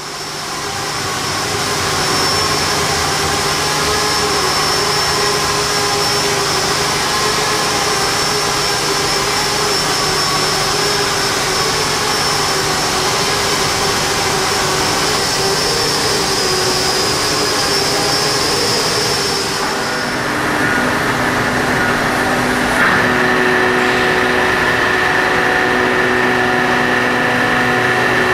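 Dense, steady machinery noise with several held tones over a hissing wash. The tones change about 20 seconds in, and there is a single sharp knock a few seconds later.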